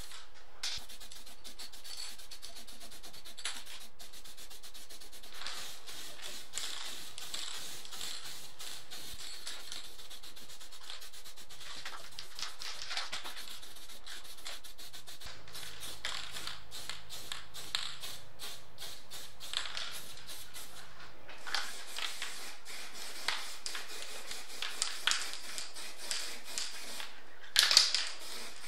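Aerosol spray-paint can hissing in repeated surges that swell and fade, with a few louder sharp sounds near the end.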